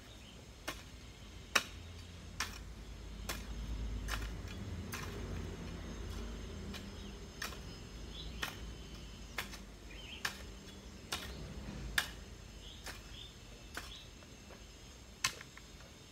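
Garden hoe striking soil, a sharp chop about once a second at a slightly uneven pace, with faint bird chirps.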